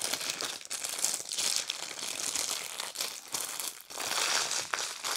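Clear plastic bag crinkling and rustling as hands fold and press it around a bundle of small bags of diamond painting drills. A dense, irregular crackle that goes on without a break.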